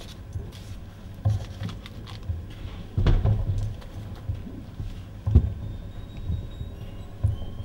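Irregular dull thumps and scuffs of a dancer's bare feet and body on a stage floor and wall, with the loudest thumps about three and five seconds in, over a low steady hum.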